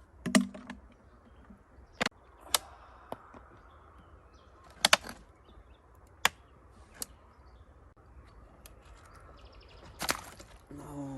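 A series of sharp knocks or clacks, about eight spaced irregularly, the loudest one near the start.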